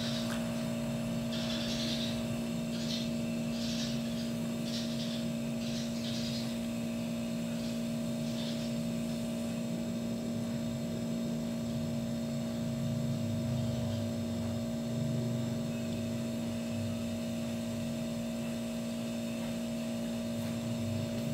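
A steady low hum at an even pitch, with a few faint, short, higher-pitched sounds in the first nine seconds or so.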